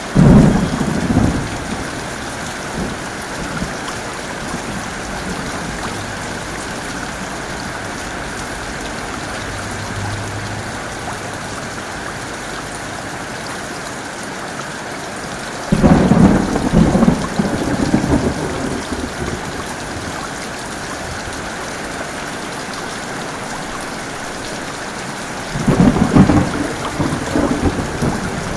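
Steady heavy rain with three loud cracks and rumbles of thunder: one at the very start, one about halfway through and one near the end, each rumbling on for two or three seconds.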